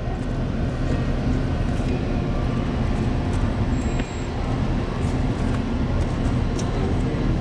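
Steady low machinery hum and rumble, unchanging throughout, with a faint click about four seconds in.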